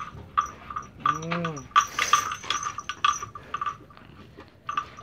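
A bloated cow working a crosswise bar held in its mouth (the Palang Pintu bloat treatment), making a rapid run of sharp clacking clicks, several a second. About a second in the cow gives a short low grunt that rises and falls. The mouthing of the bar is meant to make it salivate and bring up gas.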